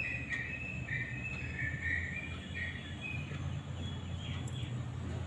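A bird chirping, a run of short high notes at two or three pitches that fades after about three and a half seconds, over a low steady hum.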